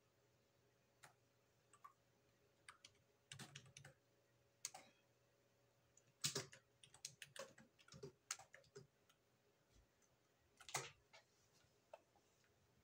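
Computer keyboard keys being typed, scattered single key clicks and short quick runs of keystrokes, faint.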